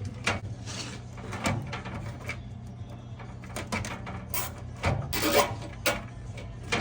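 Irregular clicks, scrapes and rattles of hands working a plastic zip tie through a drilled hole to secure a washer's replacement drain pump assembly, with a louder clatter about five seconds in, over a steady low hum.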